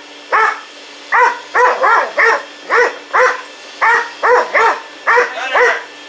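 A hunting dog barking rapidly and excitedly at a running vacuum cleaner, about two sharp, high barks a second, some coming in quick pairs, over the vacuum's steady hum.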